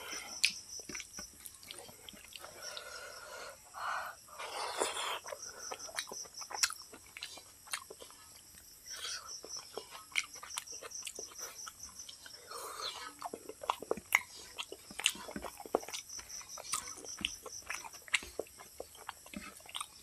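Close-up eating sounds: chewing and wet lip smacks, a rapid scatter of small clicks, with fingers squishing rice and dal against a steel plate.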